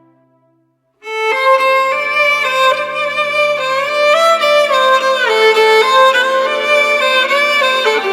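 Instrumental music: a slow melody whose notes glide smoothly into one another over a held low note. It starts about a second in, after the preceding music has faded out.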